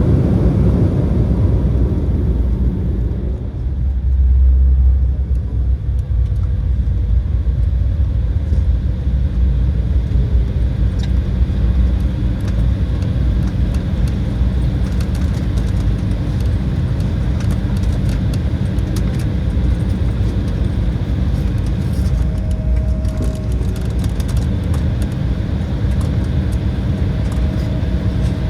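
Cabin noise inside an Embraer E175: a steady low rumble from its two GE CF34 turbofans and the airframe, swelling briefly about four seconds in.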